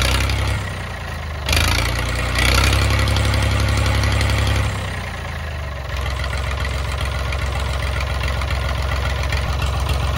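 David Brown 880 tractor's three-cylinder diesel engine running just after starting up for the first time in years. It runs louder for a few seconds, then drops back and settles to a steady idle about six seconds in.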